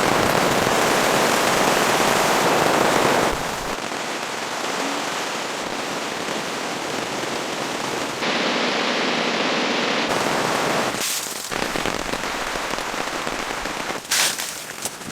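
Steady rain pattering, a dense crackling hiss that jumps abruptly in loudness several times, with a brief louder burst near the end.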